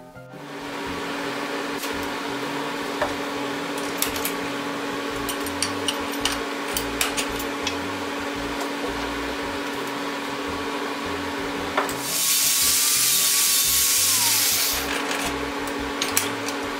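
Dremel rotary tool grinding on a steel brake-iron bracket held in a vise, its motor running at a steady whine under a rough grinding noise with scattered ticks. About twelve seconds in it bites harder for about three seconds, a louder, hissing cut.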